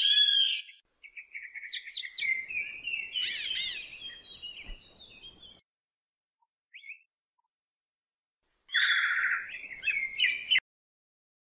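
Songbird chirping and warbling in separate phrases: a short burst at the start, a longer run of varied chirps over the next few seconds, a single short chirp midway, and a fast trill near the end that cuts off suddenly.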